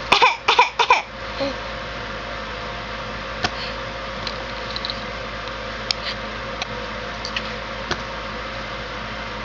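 A short burst of voice sounds in the first second, then steady room hiss with a few faint, scattered clicks and taps; no cough is heard.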